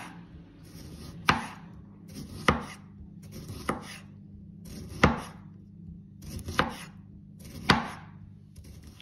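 Kitchen knife slicing lemons on a cutting board: six sharp chopping strokes roughly a second and a quarter apart.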